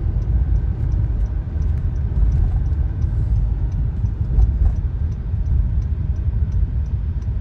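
Steady low rumble of a car driving, heard from inside the cabin: road and engine noise, with faint, quick, evenly spaced ticking high up.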